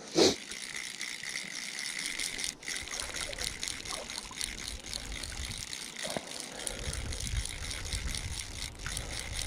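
Fly reel's click-and-pawl ratchet running in a steady rattling buzz as line is taken and wound while a hooked trout is played. A short sharp knock comes at the very start, and a low rumble joins about two-thirds in.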